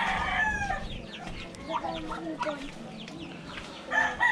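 Rooster crowing: one long crow trails off about half a second in and another begins near the end, with short clucks and chirps from chickens in between.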